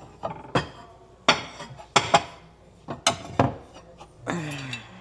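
Dishes clattering as a plate is got out: about six sharp clinks and knocks of crockery, ending in a longer scrape with a falling tone.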